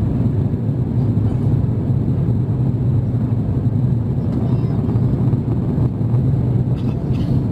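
Steady cabin noise of an Airbus A350-900 climbing out after takeoff: the low drone of its Rolls-Royce Trent XWB engines mixed with the rush of airflow past the fuselage.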